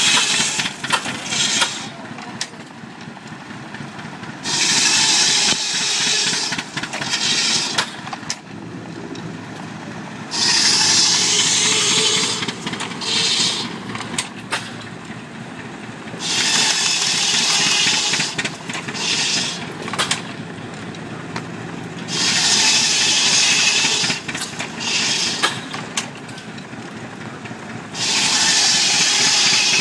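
Belt-driven antique wood-shaving machine working in cycles: a loud rasping shave about two seconds long comes roughly every six seconds, with shorter scrapes between, over the steady low running of the machine and its belt drive.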